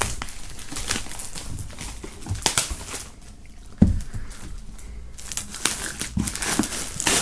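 Clear plastic shrink-wrap film crinkling and crackling as it is peeled off a cardboard box, with a single thump about four seconds in.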